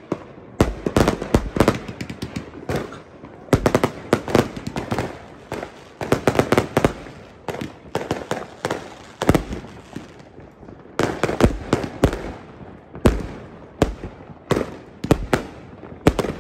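Fireworks going off in rapid volleys of sharp bangs and crackling, coming in clusters with short lulls between them.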